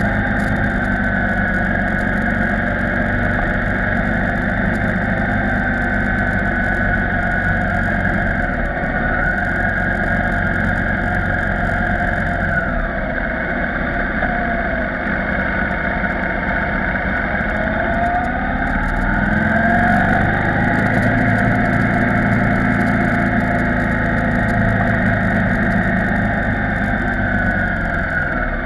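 KTM 990 Supermoto R's V-twin engine running at low road speed on a winding descent. Its pitch falls about a third of the way in as the bike slows for a bend, then rises again past the middle as it picks up speed.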